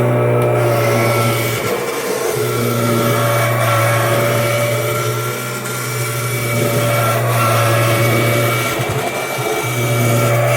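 A 1994 Kirby G4 upright vacuum running steadily, its motor and fan giving a strong hum with a whine on top. The sound dips briefly about two seconds in and again near the end.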